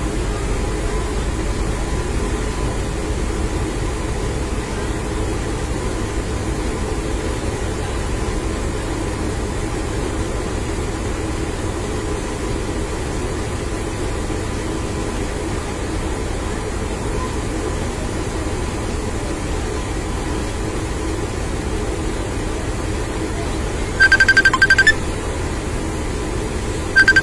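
Isuzu fire truck's engine running steadily while the truck stands still. Near the end, two loud bursts of a high electronic tone, each about a second long and about three seconds apart.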